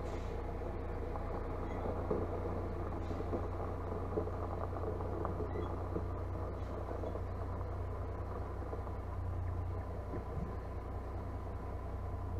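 Heavy diesel engine running steadily at low revs while a tipper truck reverses, with a few faint light knocks.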